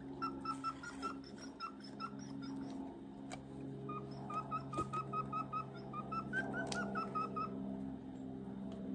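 A bird calling a rapid series of short, clipped notes, about five a second, in two bouts, the second longer and ending about three-quarters of the way in. A few sharp clicks of handling and a steady low hum sit underneath.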